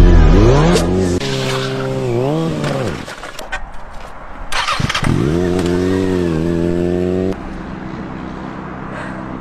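Sport motorcycle engine revving, its note rising and falling several times, with a quieter stretch and a few sharp clicks midway, then settling to a steadier, lower running note near the end.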